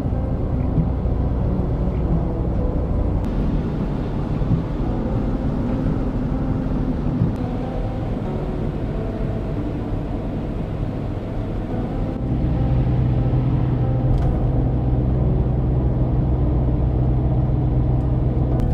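Hyundai Terracan SUV driving, a steady low engine and road rumble; the low hum grows louder and steadier about twelve seconds in.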